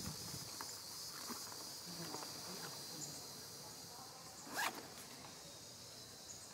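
Insects in the forest buzz in a steady high drone, with faint scattered rustles and clicks, and a short sharp rasp about two-thirds of the way through.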